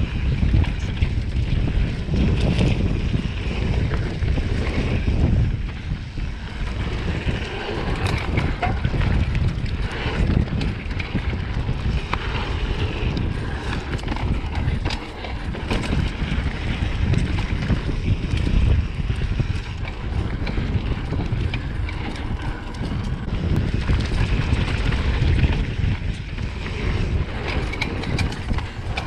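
Mountain bike riding fast down a dirt trail: tyres rolling over dirt and roots, with the bike's chain and frame rattling and knocking over the bumps, and wind rushing over the camera microphone.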